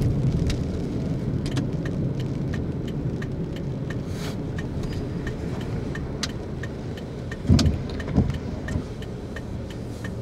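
Car driving, heard from inside the cabin: a steady low road rumble with scattered light ticks and rattles, and two dull thumps about three quarters of the way through.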